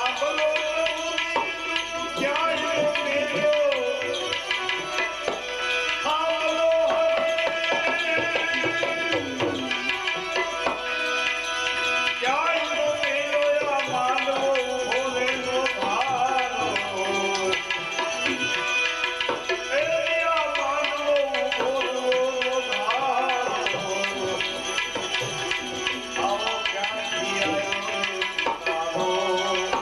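Devotional bhajan music: tabla keeps a steady rhythm under a melody of held notes and sliding pitches.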